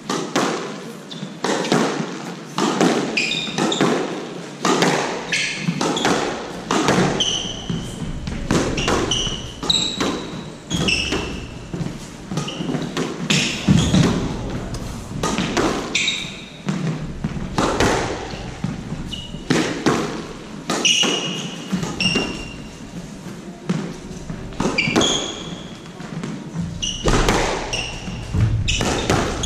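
Squash rally: the ball cracks off the rackets and thuds against the walls, a knock about every second, echoing around the court. Short high squeaks from the players' shoes on the hardwood floor come between the shots.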